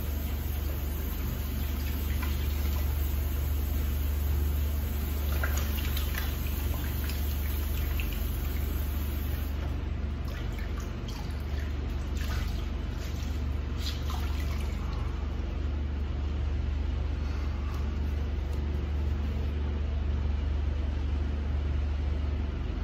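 A steady low hum, with faint short scrapes and light splashes between about five and fifteen seconds in.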